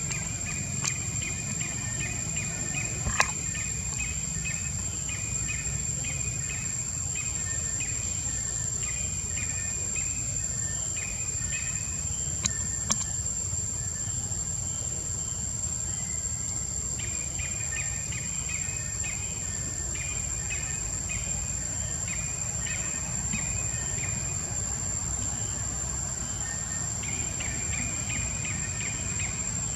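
Outdoor ambience: long runs of rapid, high chirping notes over a steady high-pitched drone and a low rumble. The chirping pauses midway and starts again, and there are a few sharp clicks.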